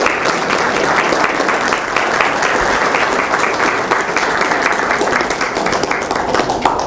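Audience applauding, a dense patter of many hands clapping that stops near the end.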